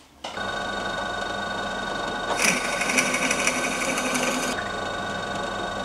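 Electric drill running with a steady motor whine, boring a pilot hole into a hardwood blank. From about two seconds in until about four and a half seconds, the bit cutting into the wood adds a hiss.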